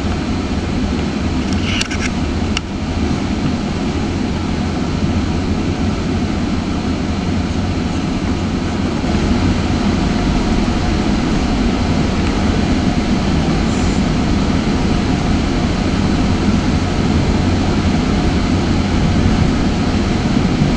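Steady rumble and wheel-on-rail noise heard inside a moving GO Transit bilevel passenger coach, with a couple of brief clicks about two seconds in. It gets a little louder about halfway through.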